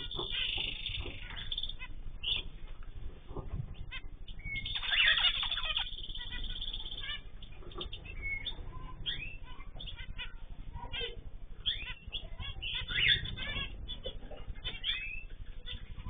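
Small cage birds in a mixed finch aviary chirping and calling in short rising and falling notes. There is a dense run of calls about five seconds in and another near the end, over a steady low hum.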